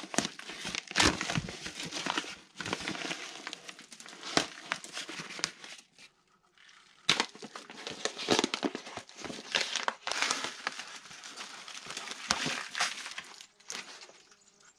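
Plastic sheeting being crinkled and pulled off the wooden ends of shelf supports set in a clay wall: irregular crackling and rustling. It pauses briefly about six seconds in, then starts again.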